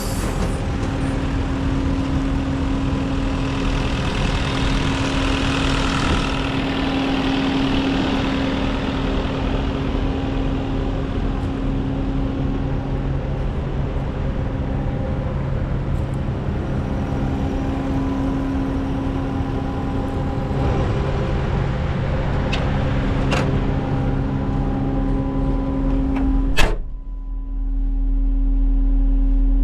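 The diesel engine of a JCB 215 wheeled skid steer running steadily. Near the end there is a sharp click, after which the sound turns to a lower, steadier hum.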